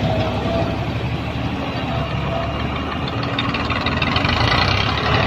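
Massey Ferguson tractor and excavator engines running together as a tractor pulls a loaded trolley away.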